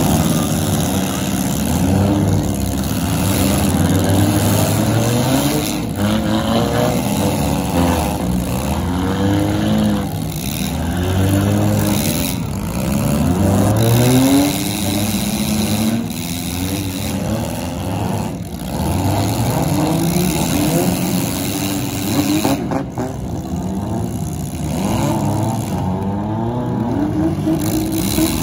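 Several demolition-derby cars' engines revving hard at once, many rising and falling engine notes overlapping, with a few sharp knocks of the cars ramming each other.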